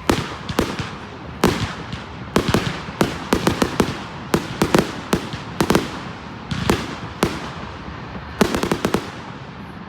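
Fireworks exploding: many sharp bangs at irregular intervals, with quick runs of crackling pops in the middle and again near the end.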